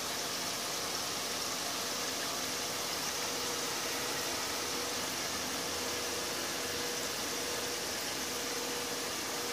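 Potato fries deep-frying in hot oil in a kadai, a steady, even sizzle of bubbling oil as the fries turn light golden.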